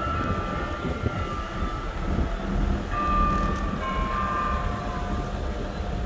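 Church bells ringing: several overlapping bell tones, each held and slowly fading, with fresh strikes about three and four seconds in, over a low rumble.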